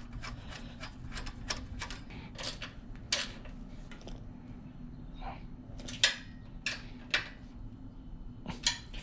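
Small metal clicks and taps from the throttle linkage and cable being hooked up on a small engine's Tillotson carburetor, with a few sharper clicks about 3 and 6 to 7 seconds in.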